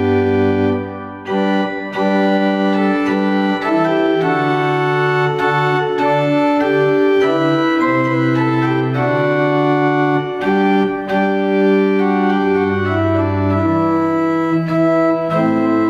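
Church pipe organ playing a hymn tune in full sustained chords. The chords change every half second or so, with short breaks between phrases about a second in and again around ten seconds in.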